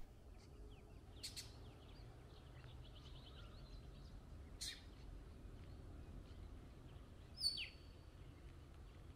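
Faint outdoor ambience: birds chirping over a low steady rumble. There is a run of small chirps early, and one louder call falling in pitch about seven and a half seconds in.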